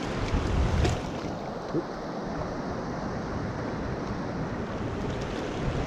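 Shallow mountain trout stream running over rocks: a steady rush of water, with some wind noise on the microphone.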